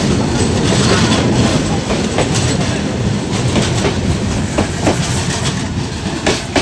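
An Indian Railways express train's LHB passenger coaches rolling past on departure: a steady, loud rumble of wheels on rail. In the second half, sharp wheel clicks come in pairs over the rail joints as the bogies pass.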